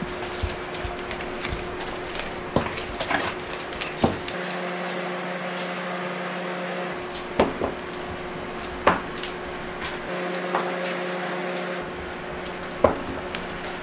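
Steady machine hum with a handful of sharp knocks and taps as warm candy ropes are pressed and handled on a steel work table.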